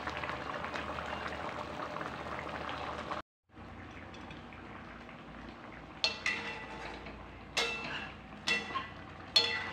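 Coconut-milk fish curry bubbling at a simmer in a wok. After a brief break, a spatula stirs it, clinking sharply against the pan about four times near the end.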